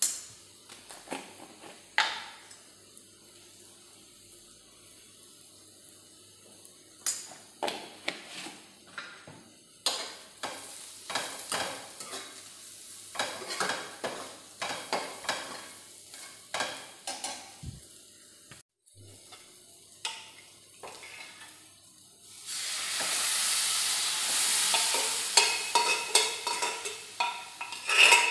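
Metal spatula scraping and tapping against an aluminium kadai as sliced onions and spices fry in oil, with a light sizzle. About two thirds of the way through a much louder, steady sizzle rises and carries on, the spatula still clattering through it.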